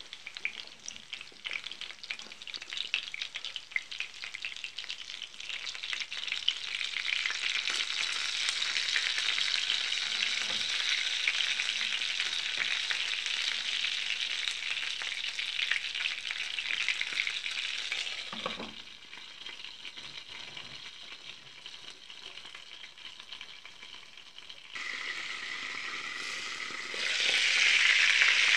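Meat pirozhki frying in hot oil in a frying pan: a crackling sizzle that grows louder and steadier about six seconds in, drops suddenly about two-thirds of the way through, then jumps louder again in two steps near the end.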